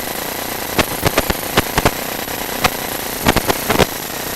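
Irregular sharp clicks and knocks over a steady mechanical hum with a thin high whine, from the sewer inspection camera rig as its push cable is worked through a cast iron drain line.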